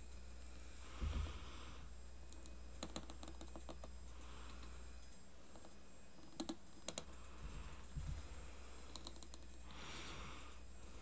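Small plastic miniature food pieces handled and set down on a tiny tray: faint clusters of light clicks and taps, with a couple of dull thumps, one about a second in and another near 8 seconds.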